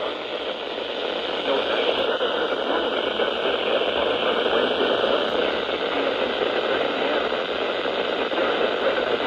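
Steady radio static hiss from a NOAA Weather Radio receiver on a weak signal, with no voice coming through.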